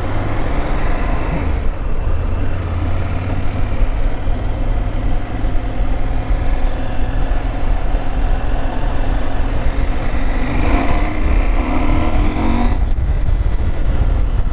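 KTM 790 Adventure's LC8c 799 cc parallel-twin engine running under way at low speed. About ten seconds in the engine note climbs, then drops off suddenly near the end.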